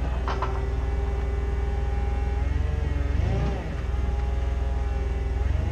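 Forklift engine running steadily, its pitch rising and falling briefly about three seconds in.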